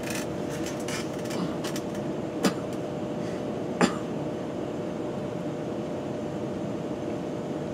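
Steady electrical hum of running equipment, with a couple of faint steady tones, broken by a few light clicks, the sharpest about two and a half and four seconds in.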